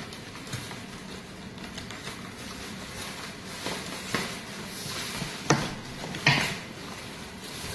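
Plastic wrapping and taped packing foam rustling and crackling as a parcel is unwrapped by hand, with a few sharper crackles in the second half.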